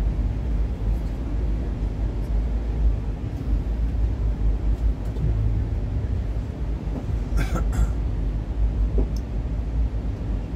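Steady low rumble of a moving passenger train, heard from inside its glass-domed observation car. A brief sharper, higher sound cuts in about seven and a half seconds in.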